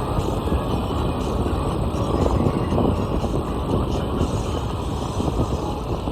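Steady low rumble of road and wind noise from a moving vehicle, with no distinct engine note.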